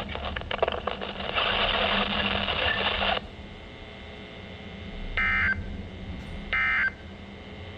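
Weather radio receiver giving a couple of seconds of hiss, then two short bursts of warbling SAME digital data tones about a second apart. These are the end-of-message code that closes the NOAA Weather Radio weekly test.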